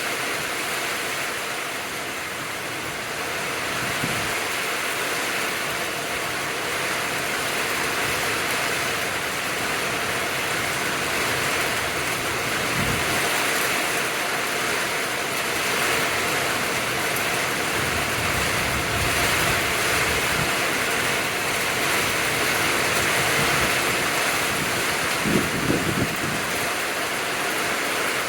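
Heavy rain pouring down in a steady hiss, with a few brief low thumps near the end.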